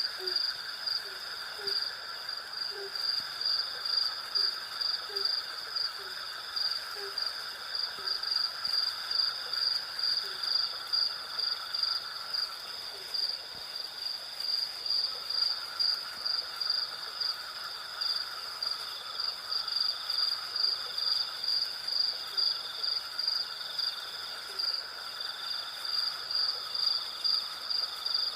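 Night insect chorus of crickets: a high chirp pulsing about twice a second over a steady lower buzzing trill. Through the first third a series of short low notes repeats at a similar pace, then fades.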